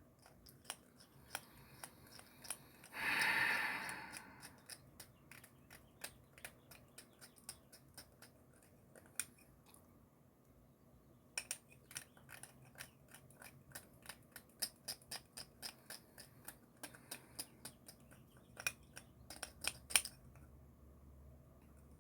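Crunchy Flamin' Hot Cheetos being chewed slowly in the mouth: a long run of sharp, irregular crunching clicks, with a short breathy rush about three seconds in.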